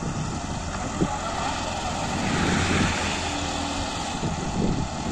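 Diesel engine of an Escorts Hydra 14 pick-and-carry crane running steadily with a low drone. A hiss swells briefly about two and a half seconds in.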